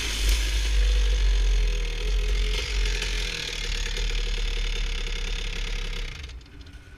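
Dirt bike engine running while the bike rides over lake ice, with a steady low rumble. The sound dies down about six seconds in.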